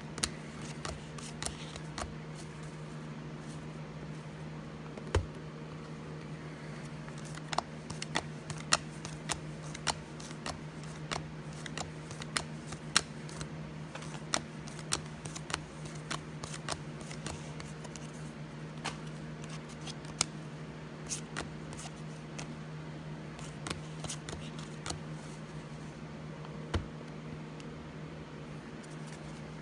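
Football trading cards flipped through by hand one at a time: a long run of irregular short card snaps and slides, thickest in the middle, over a steady low hum.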